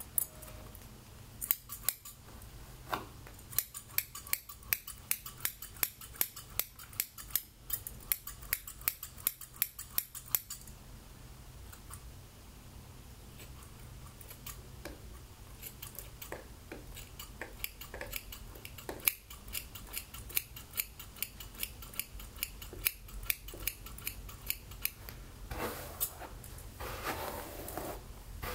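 Scissors snipping through wet hair in runs of sharp, quick snips, with a pause of a few seconds partway through. Near the end there is a brief rustle as the wet hair is handled.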